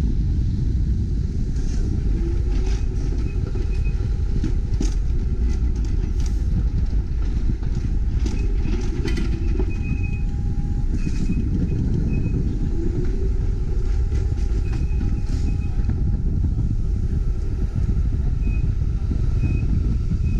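TTC CLRV streetcar running along its rails, heard from a camera mounted on its outside: a steady low rumble with scattered light clicks and brief faint high-pitched squeals.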